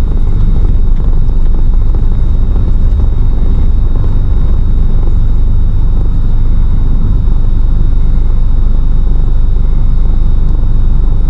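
A vehicle on the move: a steady, loud, low rumble of engine and road noise.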